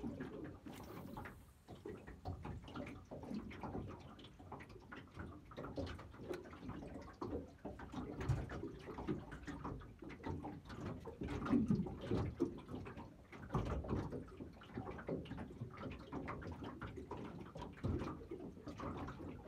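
Small waves lapping and slapping against a small fishing boat's hull, with irregular knocks and thumps throughout.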